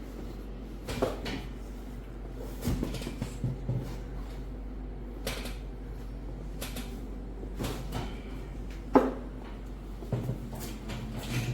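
Scattered knocks and creaks from handling a patient on a chiropractic treatment table, five or six in all, the sharpest about nine seconds in, over a steady low hum.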